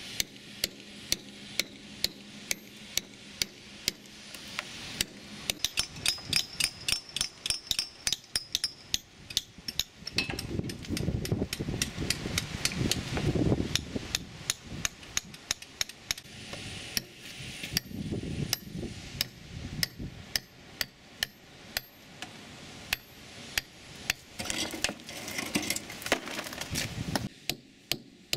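Hammer and chisel chipping hard rusty concretion off an old cannon: a steady run of sharp metallic taps, a few a second. A low rumble rises under the taps in the middle stretch.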